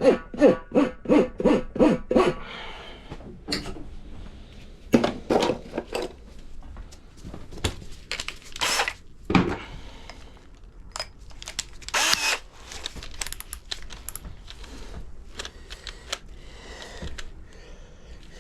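A rhythmic pulsing tone, about three beats a second, for the first two seconds, then scattered short bursts of tool work and handling noise from the tire repair.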